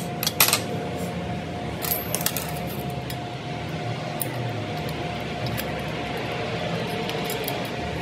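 Sharp metallic clicks and light clinks, the loudest about half a second in and around two seconds, with fainter ones later, over a steady hum and a thin steady tone.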